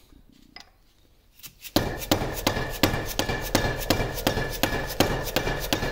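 Steady hammer blows on a steel punch, driving a gear off its shaft inside a cast-iron lathe apron. About three strikes a second with a metallic ring, starting a couple of seconds in.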